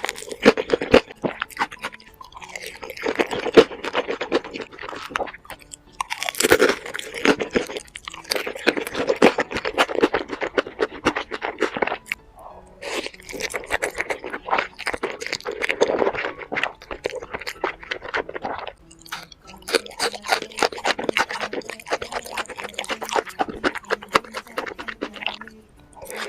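Close-miked eating: chewing and crunching mouth sounds, in bouts broken by brief pauses every few seconds.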